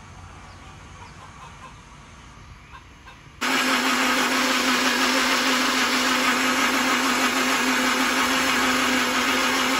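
Quiet ambience, then about three and a half seconds in a countertop electric blender starts abruptly and runs with a loud, steady motor whir and a constant hum, blending a liquid mix.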